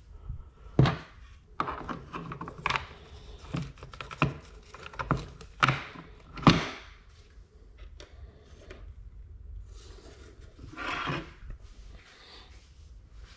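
Small plastic and metal parts being handled and fitted onto a black plastic battery bracket on a desk: a string of sharp clicks and knocks, the loudest about a second in and just past the middle, then a brief rubbing sound near the end.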